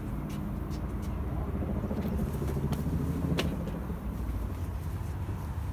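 A motor vehicle running past: a steady low rumble with an engine hum that swells in the middle. A single sharp click comes about three and a half seconds in.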